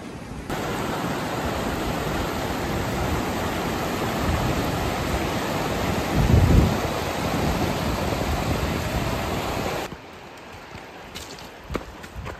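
A swift river, swollen after heavy rain, rushing over stones and boulders, with a brief low buffet of wind on the microphone about six seconds in. The rushing cuts off sharply near the end, leaving quieter footsteps crunching on a stony track.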